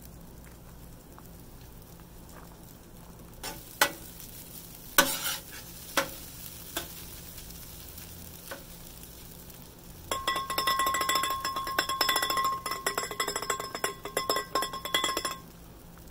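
Metal spatula chopping and scraping rice on a Blackstone steel flat-top griddle. A few single knocks come first, then a fast run of metal-on-metal clacks with a ringing tone for about five seconds near the end, over a faint sizzle of rice frying in butter.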